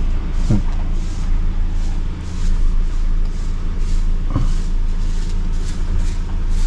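A road vehicle's engine and road noise running steadily, a continuous low rumble with a rushing haze over it, as it is driven.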